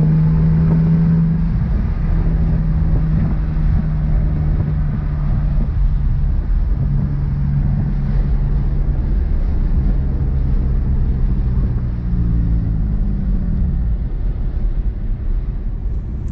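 BMW E46 330i's straight-six engine pulling on a drive, its note breaking off briefly about a second and a half in and again around six and a half seconds as gears are changed, over steady road noise. Near the end the engine note falls away and mostly road rumble is left.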